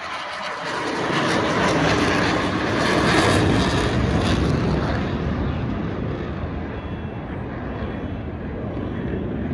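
Blue Angels F/A-18 jets flying over, their jet engine roar swelling to a peak a few seconds in, then fading to a lower, duller rumble as they pass.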